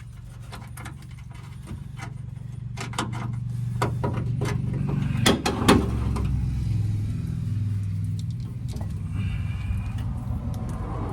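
Metal clinks and knocks of tools and parts being worked under a pickup truck, two sharp knocks loudest about halfway through, over a steady low rumble that grows louder.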